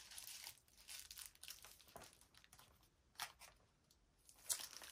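Faint rustling of paper as a scrapbook journal packed with pages and inserts is handled, with a couple of brief light taps in the second half.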